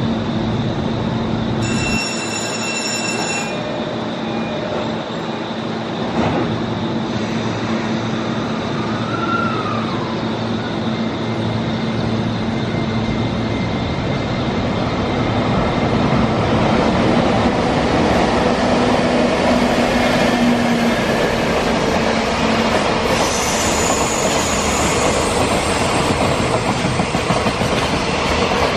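JR Freight container train running through a station: a steady rumble of wheels on rail that grows louder from about halfway as the wagons pass, with clattering wheels and a brief high wheel squeal near the end.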